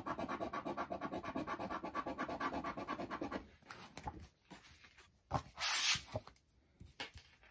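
A scratch-off lottery ticket being scratched with a coin-sized scratcher: quick, even back-and-forth strokes, several a second, that stop about three and a half seconds in. After that come a few light handling clicks and one short brushing sound near six seconds as the card is moved.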